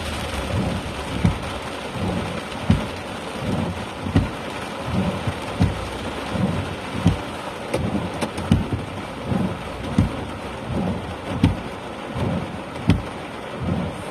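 Steady rain falling on a moving car, heard from inside the cabin, with a short low thump about every three-quarters of a second.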